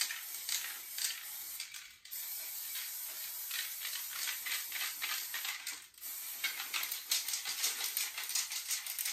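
Aerosol spray-paint can spraying a metal panel in long hisses, broken by short pauses about two and six seconds in, with a quick rattle near the end.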